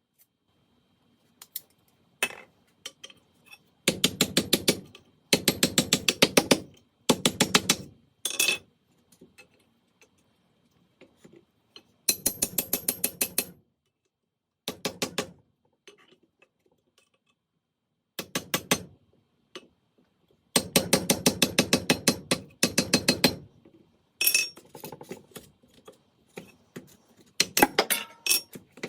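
A workshop tool making rapid, evenly spaced metallic clicks, about ten a second, in short bursts of one to three seconds with pauses between.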